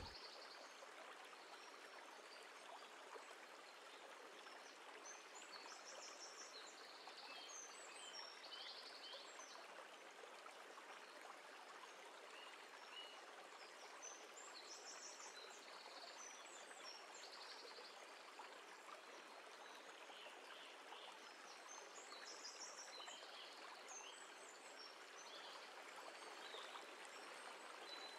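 Faint steady rushing of a flowing stream, with small birds chirping briefly now and then.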